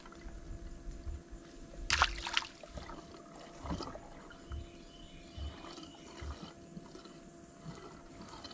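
Water splashing and dripping close by, with the loudest cluster of splashes about two seconds in and smaller drips and splashes after.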